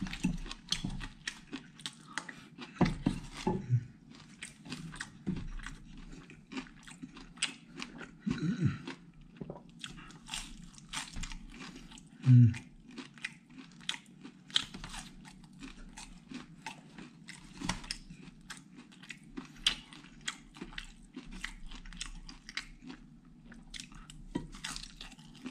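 Close, dense chewing and crunching of food, many sharp crisp crunches as a crispy fried cracker is bitten and chewed, with a few short low voice sounds in between, the loudest about twelve seconds in.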